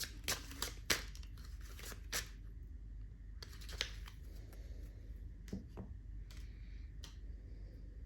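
Deck of tarot cards being shuffled and handled by hand, a quick run of card snaps in the first couple of seconds, then only a few scattered ones.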